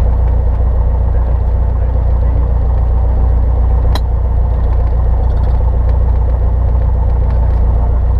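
Light single-engine piston airplane's engine and propeller running steadily at taxi power, heard inside the cockpit as an even low drone. A single sharp click sounds about halfway through.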